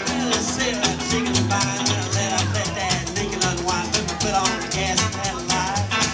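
Live string band's instrumental break. Bending lead guitar lines play over upright bass notes and strummed acoustic guitar, with a washboard scraped in a fast, even rhythm.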